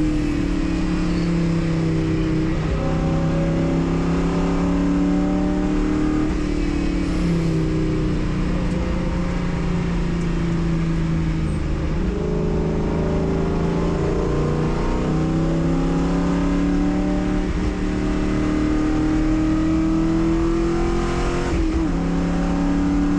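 Race car engine under load, its pitch climbing steadily through each gear and dropping sharply at gear changes several times.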